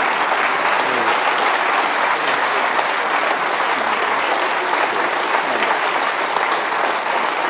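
Audience applauding steadily, dense clapping from a full room.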